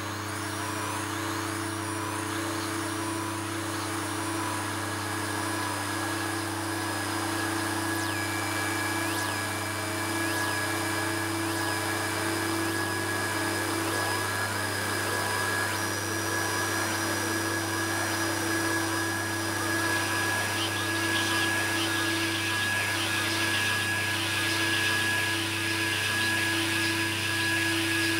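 Experimental electronic noise: a steady droning hum with sustained tones over hiss. Short rising chirps repeat in the first few seconds, a repeating dipping blip sounds a few times around the middle, and a denser high hiss thickens near the end.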